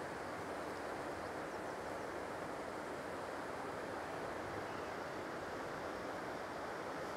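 Water rushing steadily over a small stone weir on a brook.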